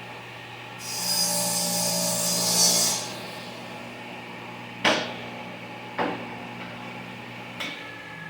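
Table saw running steadily, then cutting through a small piece of wood for about two seconds, starting about a second in. After the cut come three sharp knocks of wood pieces being set down, and the motor hum drops away near the end.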